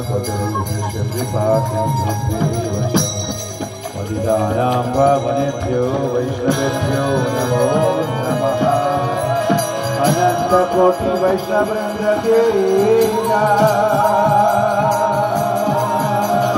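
Devotional kirtan music: voices chanting over a barrel drum and steadily jingling hand cymbals.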